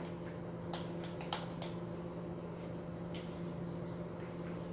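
A spoon stirring thick yogurt dip in a small bowl, with light, scattered clicks of the spoon against the bowl, over a steady low hum.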